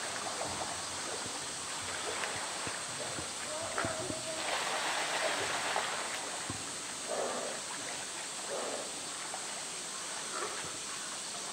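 Polar bear swimming and splashing in a pool, with a louder splash about four and a half to six seconds in as it heaves its body up out of the water. Visitors' voices murmur in the background.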